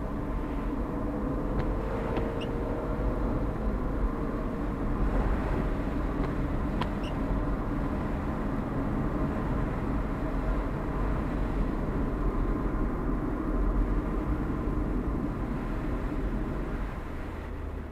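Car driving on a rain-wet road, heard from inside the cabin: a steady run of engine and tyre noise, with a few light ticks in the first several seconds.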